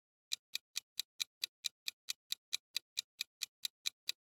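Ticking-clock timer sound effect: quick, evenly spaced ticks, about four and a half a second, counting down the answer time for a quiz question.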